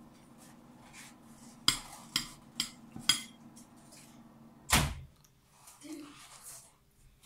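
A metal spoon clinking and scraping against a plate of rice: four sharp clinks between about two and three seconds in, then a louder, duller knock just before the five-second mark, over a low steady hum.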